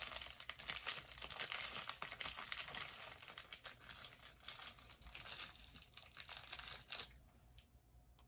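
Plastic wrapper of an Umaibo puffed corn stick crinkling as it is handled and opened, dying down about seven seconds in.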